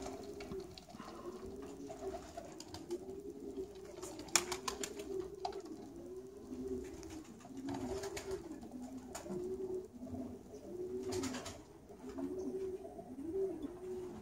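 Domestic pigeons cooing: a steady run of rising-and-falling coos, about one a second, with a few sharp clicks around four seconds in and again near eleven seconds.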